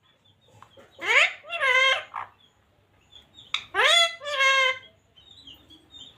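Pet parrot talking, a high-pitched, speech-like two-syllable phrase said twice: once about a second in and again about three and a half seconds in.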